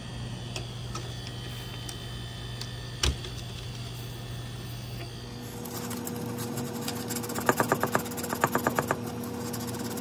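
Steady low hum, then two short runs of rapid, evenly spaced ratcheting clicks, about eight a second, from hand work on the refrigerator's compressor wiring and lines.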